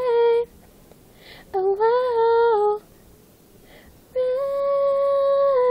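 A female voice singing unaccompanied without words: three sustained phrases separated by pauses, the last a long, steady held note.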